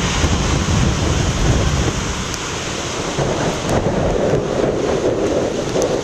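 Big storm waves breaking and washing over shoreline rocks: a loud, steady rush of surf with a deep rumble that eases slightly after about two seconds.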